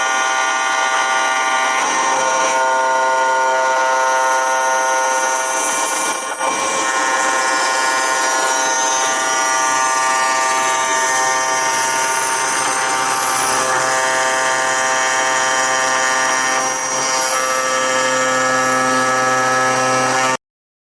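Machine tool cutting a steel part: a steady whine made of several fixed tones over a cutting hiss, which cuts off suddenly near the end.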